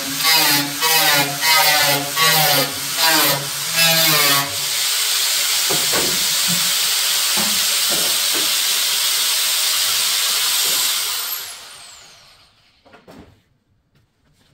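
Angle grinder cutting sheet steel in short repeated passes, its motor pitch dipping under load with each pass. About four seconds in this gives way to a steady hissing grind as the edge of the cut taillight opening in the steel fender is smoothed. Near the end the tool is switched off and spins down.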